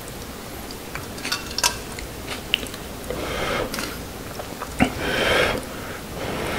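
Wooden chopsticks clicking against a thin aluminium yangeun pot and its lid as instant ramen noodles are lifted out. Then there are two short breathy puffs of blowing on the steaming noodles to cool them, with a sharp click between.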